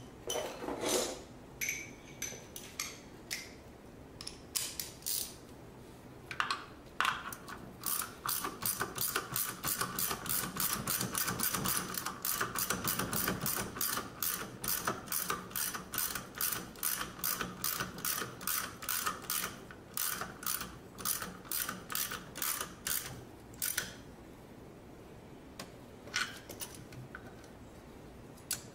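Hand ratchet with a 9/16 deep-well socket on a 6-inch extension clicking as it turns the nuts that hold the master cylinder to the brake booster. A few scattered clicks come first, then a long, even run of fast clicks for about sixteen seconds, then a few more near the end.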